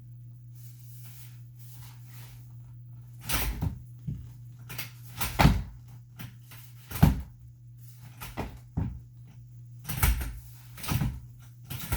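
Irregular knocks and clunks of a portable playpen's frame being handled, its rails pushed and rattled while trying to get them to latch. The knocks start a few seconds in, about ten of them, unevenly spaced.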